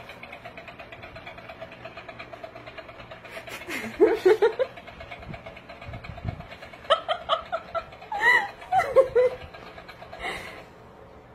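A person laughing in short bursts, first about four seconds in and again in a longer run later. A faint, steady, rapidly pulsing mechanical hum runs underneath.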